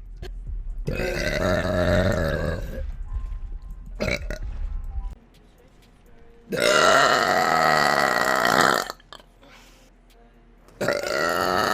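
Three long, loud burps from a woman, each lasting about two seconds, the last starting near the end, with a short sharp sound about four seconds in.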